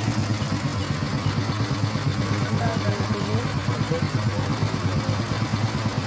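Concrete mixer truck's diesel engine running steadily.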